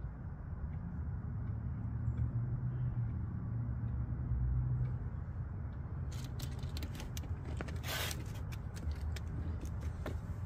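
A steady low rumble runs throughout and is the loudest sound. In the second half come quick clicks and crackles of a plastic quart oil bottle being handled in the funnel and then lifted away, with a short rustling burst in the middle of them.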